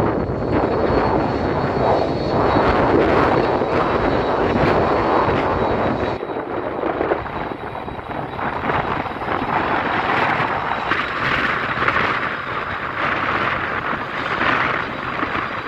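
Jet engines of an Airbus A300-600ST Beluga running, a loud steady jet rumble with a thin high whine. About six seconds in, the low rumble drops away and the sound thins.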